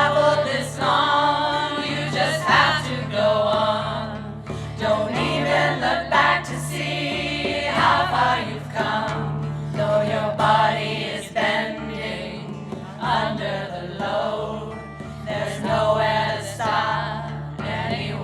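Choir singing a song over instrumental accompaniment that holds a steady low note.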